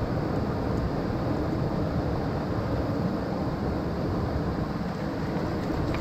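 Steady rushing of a swollen mountain stream running high and fast, an even noise heavy in the low range.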